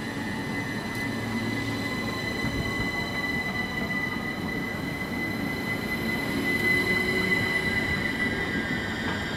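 Class 377 Electrostar electric multiple unit moving along the platform: a steady high whine with fainter whines above it, a fainter whine slowly rising in pitch, and a low running rumble, loudest a little after halfway.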